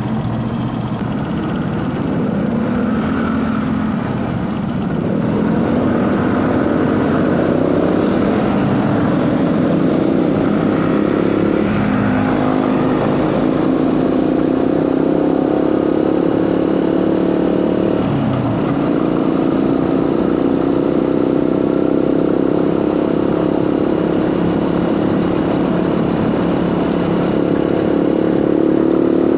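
Motorcycle engine running under way, with intake noise and drive-chain noise; the engine pitch climbs slowly, with two brief breaks about twelve and eighteen seconds in, and rises most in the last third.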